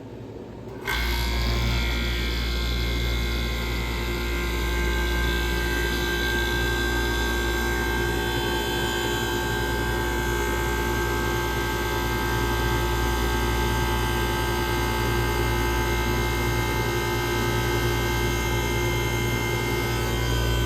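1978 Comfort Air Quiet Master window air conditioner kicking on about a second in, then running steadily: a deep compressor hum under the whir of its fan.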